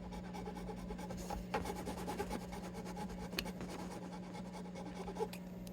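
Small hand file scratching in quick, short strokes, with a few light clicks, over a low steady hum.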